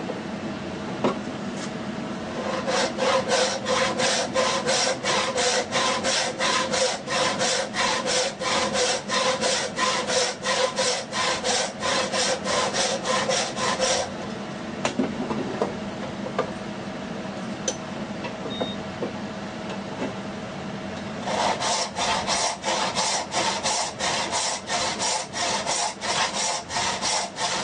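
Hand saw cutting through wood in quick, even back-and-forth strokes, about three a second. It stops for several seconds midway, then starts again.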